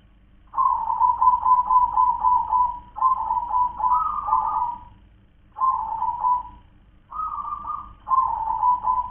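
Zebra dove (perkutut) cooing its song: five phrases of quick, rolling repeated coos with short pauses between them, the first beginning about half a second in.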